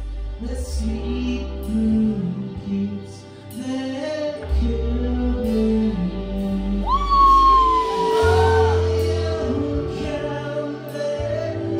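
Rock band playing live, with electric guitars, bass and drums under a man singing into a microphone. About seven seconds in, a high note jumps up and slides slowly down.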